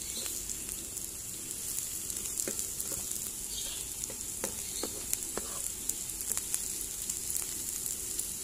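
Sliced beetroot, carrot and onion sizzling in oil in a frying pan, a steady hiss, while a spatula stirs them, knocking and scraping against the pan in short irregular clicks.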